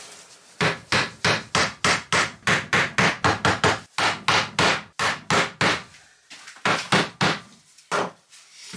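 Hammer driving small cabinet backboard nails into a wooden frame, in two runs of rapid blows at about three to four a second.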